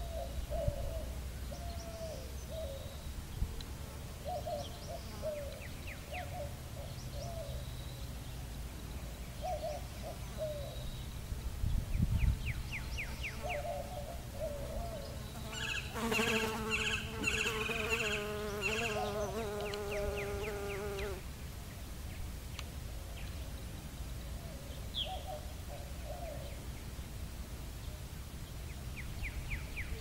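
Outdoor ambience with faint bird calls coming and going over a low rumble. About 16 seconds in, a loud steady buzz with many overtones runs for about five seconds, shortly after a single thump.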